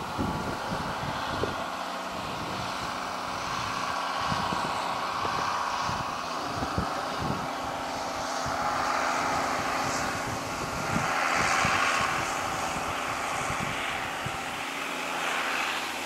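Tractor engine running steadily as it pulls a multi-furrow plough, its drone swelling a little and easing off through the middle. Wind buffets the microphone throughout.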